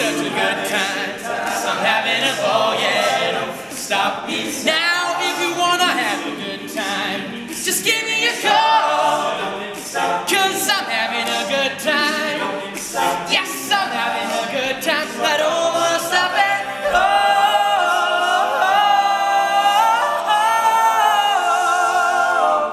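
All-male a cappella group singing in close vocal harmony with no instruments, the lines moving and shifting for most of the time, then settling into one long held chord near the end that stops abruptly.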